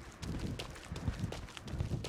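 Running footsteps at a steady stride of about two and a half steps a second, each a low thud, with sharper scuffs and clicks between them.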